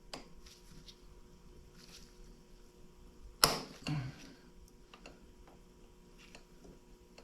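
Light metallic clicks of master-link pliers working on a motorcycle drive chain's master link, with one sharp, louder click about three and a half seconds in.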